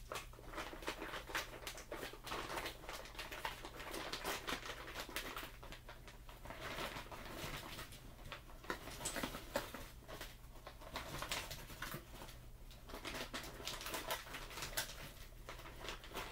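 Plastic bag of cheese tortellini crinkling as it is shaken and tipped, the pasta tumbling into an aluminium foil pan in a rapid, irregular run of small clicks and rustles.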